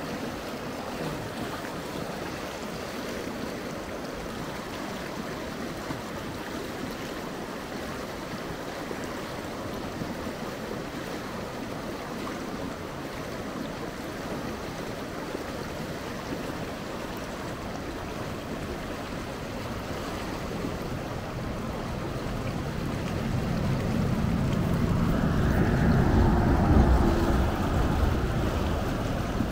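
River water flowing steadily around a wading angler. Near the end a louder low rumble builds and fades: wind buffeting the microphone.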